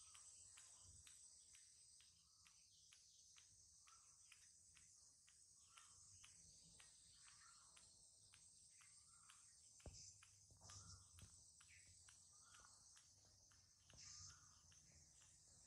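Near silence: crickets chirring steadily, with faint soft clicks about three a second from an infant macaque sucking on a pacifier, and one soft knock about ten seconds in.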